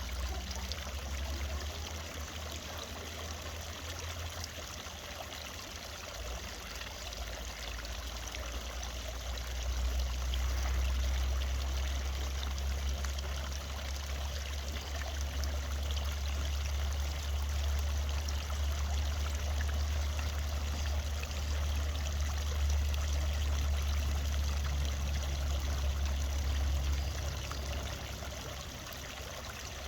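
Water from a countryside fountain splashing and trickling steadily. A low rumble runs underneath, growing stronger about ten seconds in and easing off near the end.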